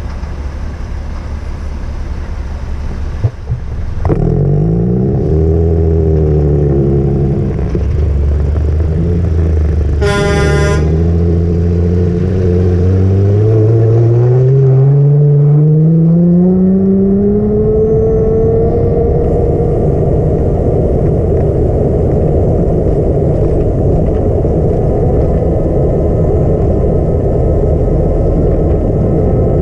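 A vehicle's engine getting louder and pulling away, its pitch rising and falling, then climbing steadily as it accelerates and settling into steady running with road noise. A short horn toot sounds about a third of the way in.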